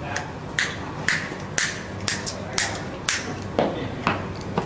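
Sharp, bright taps repeating evenly about twice a second, each ringing off briefly, over a steady low hum.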